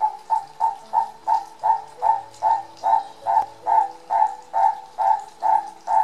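Turaco calling: a long series of short, evenly spaced calls, about three a second, keeping up a steady rhythm.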